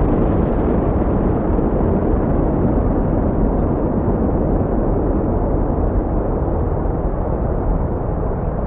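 Rocket launch: the rocket engines give a steady, deep rumbling roar of exhaust noise. The higher part of the sound slowly thins and the level eases a little toward the end.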